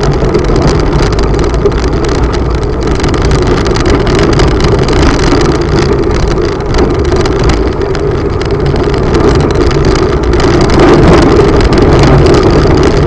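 A vehicle's engine running steadily while it travels along a bumpy dirt road, with frequent short knocks and rattles over it.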